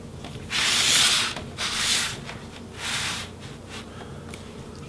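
Opened laptop chassis scraping across a tabletop as it is turned around, in three rubbing strokes. The first stroke, about half a second in, is the longest and loudest.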